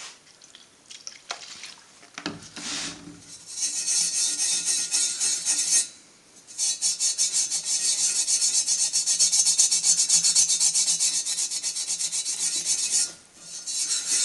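A Scotch-Brite abrasive pad wet with isopropanol scrubbed hard and fast against a cast aluminium guide spigot, in two long spells of rapid strokes with a short pause about six seconds in, cleaning off dirt that acetone would not shift.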